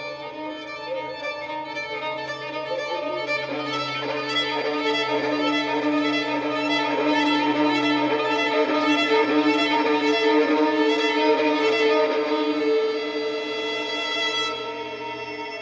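Solo violin playing a quick run of repeated bowed notes that swells louder through the middle and fades toward the end.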